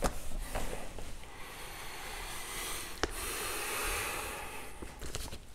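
Whiteboard eraser rubbing on the board, a soft hiss that swells from about two seconds in, with a sharp click near the middle as the eraser is set down on the board's tray, and light rustling after.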